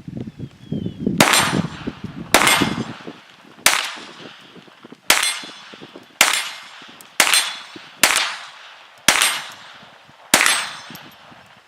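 Browning Buck Mark .22 LR semi-automatic target pistol fired nine times, one shot roughly every second. Each shot is a sharp crack followed by a short ringing echo.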